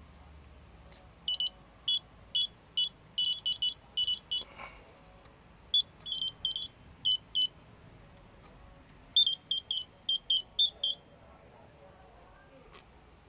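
Steve Neville Mk3 carp bite alarms bleeping as they are set off by hand. The sound comes in three runs of short, high-pitched beeps at an uneven, quickening pace, the signal of line running over the roller as it would on a bite.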